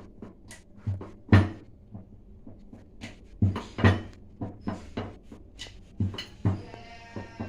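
A series of irregular knocks and clatters, about a dozen of them, with a short faint pitched sound near the end.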